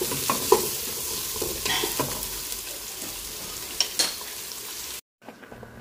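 Ginger, lemongrass and sliced vegetables sizzling in hot oil in an aluminium pot while being stirred, with a spatula clinking and scraping against the pot a few times. The sizzle cuts off abruptly about five seconds in.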